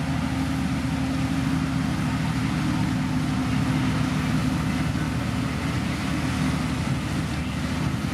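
Diesel engine of a heavy road-construction machine (motor grader or road roller) running steadily, holding a constant note with no revving.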